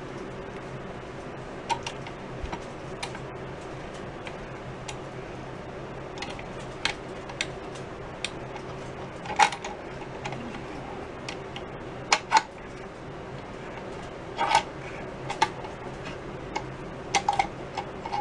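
Steel C-clamps clinking and knocking sharply about a dozen times at irregular intervals as they are set and tightened on a wooden snare drum shell, pressing glued cracks closed. A steady low hum runs underneath.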